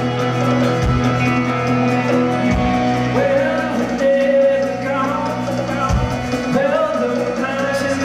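A live band playing in a concert hall: sustained electric and acoustic guitar chords with a few deep low hits. A male lead vocal comes in about three seconds in.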